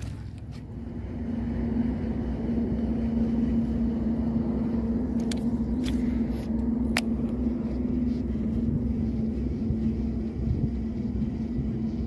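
An engine running steadily: a low rumble with a steady hum that comes up about a second in and holds, with a few faint ticks around the middle.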